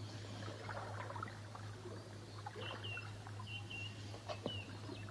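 Quiet outdoor ambience: a few faint, short, high bird chirps in the second half, over a steady low hum.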